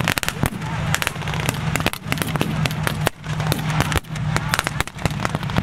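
Irregular blank gunfire: scattered rifle shots and short rapid bursts that sound like a machine gun, some in quick clusters. Under it runs a steady low rumble of tank engines.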